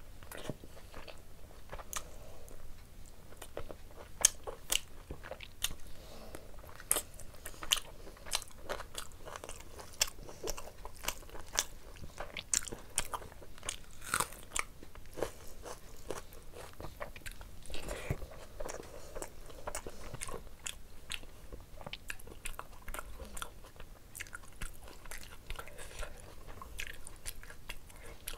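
Close-miked eating of meat curry and rice by hand: chewing and biting with many sharp, wet mouth clicks and smacks.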